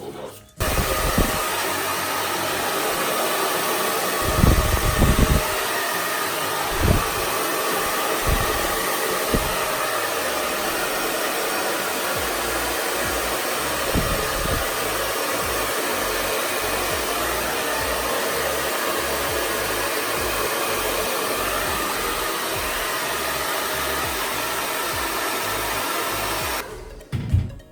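CONFU Professional ionic hair dryer running with a steady blowing rush, switched on about half a second in and cut off about a second before the end. A few low thuds come through the airflow, the loudest around four to five seconds in.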